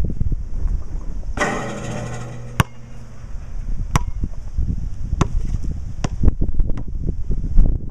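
Basketball bouncing on a concrete court in irregular sharp bounces, with wind buffeting the microphone throughout. About one and a half seconds in, a ringing rattle lasts about a second.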